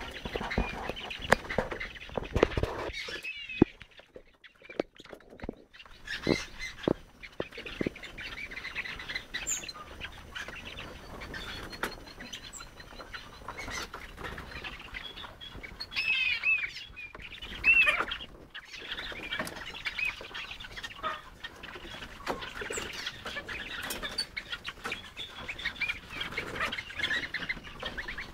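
Birds chirping and twittering in short curling calls throughout, with scattered sharp clicks and scratches; a brief quieter spell about four seconds in.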